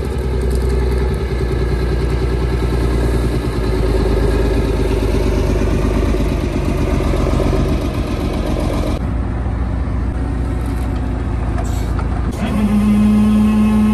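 Foden 6x6 recovery truck's diesel engine running steadily as the truck is backed into position. A little over twelve seconds in, a steady humming tone joins it.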